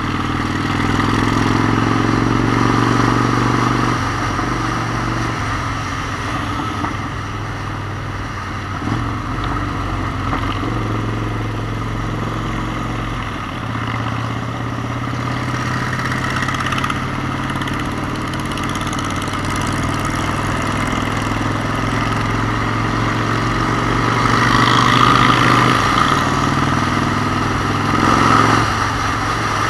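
Motorcycle engine running under way, its pitch dropping away and picking up again several times.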